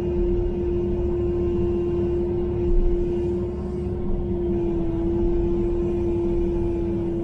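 Kubota KX080-4 excavator's diesel engine running under hydraulic load, heard from inside the cab as the bucket digs at tree roots: a steady low drone with a constant high hum over it.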